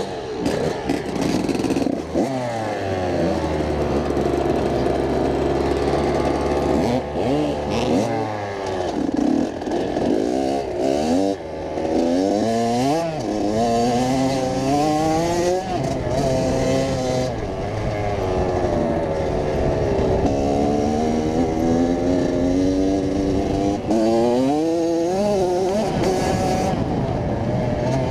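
Kawasaki KX100 dirt bike's two-stroke single-cylinder engine under way, revving up and dropping back again and again as the rider works the throttle and shifts gears.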